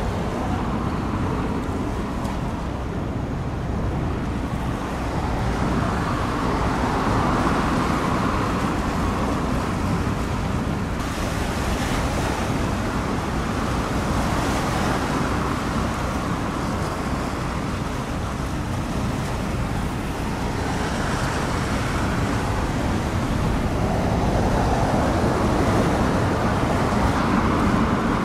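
Road traffic noise: a steady rushing hiss with a heavy low rumble, swelling a few times as vehicles pass.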